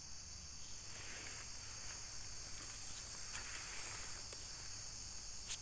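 Steady high-pitched insect chorus in the forest, with bursts of rustling and a sharp click near the end.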